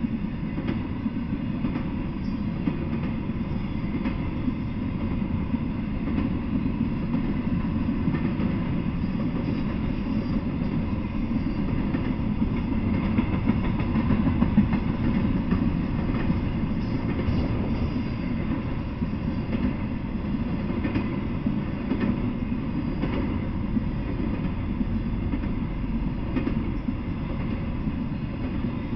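Intermodal freight train rolling past at steady speed: a continuous low rumble of steel wheels on the rails, with faint clicks and clatter from the cars.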